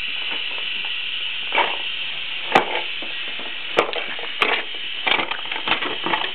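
Irregular sharp knocks and scrapes of a toddler's hands on the inside of a cardboard box, coming more often in the second half, over a steady hiss.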